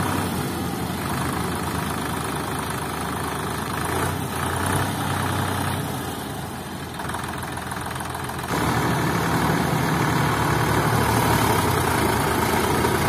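Tractor diesel engines idling steadily, getting abruptly louder about eight and a half seconds in.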